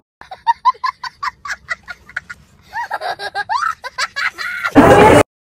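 A young boy laughing hard in quick, high giggles, about four or five a second, then in longer wavering laughs. Near the end a brief loud burst of noise cuts off suddenly.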